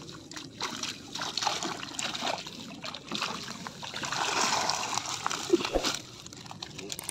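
A mesh keep net full of live tilapia being hauled out of the water: splashing and water streaming out through the netting, with irregular clicks and rustles of the wet mesh. The water rush is heaviest from about three and a half to six seconds in, then dies down as the net comes to rest.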